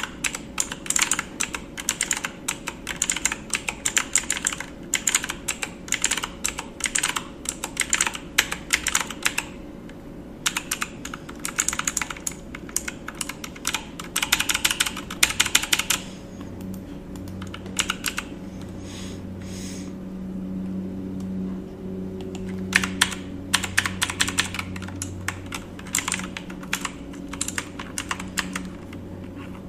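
Computer keyboard typing: quick runs of keystrokes in bursts, broken by a pause of several seconds about halfway through. A steady low hum rises during that pause and carries on under the later keystrokes.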